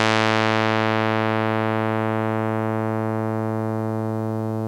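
Synthesized note on low A (110 Hz) made with a discrete summation formula: a bright, buzzy tone full of evenly spaced harmonics. Its upper harmonics slowly die away while the note keeps sounding, which gives it a harpsichord kind of vibe.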